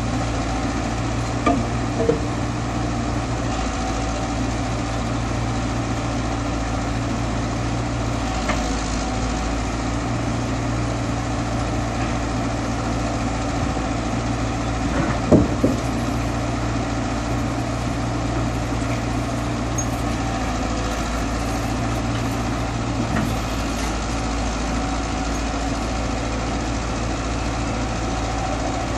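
Caterpillar 312 hydraulic excavator's diesel engine running steadily, with a few knocks as its bucket works against a concrete pillar; the loudest thump comes about halfway through.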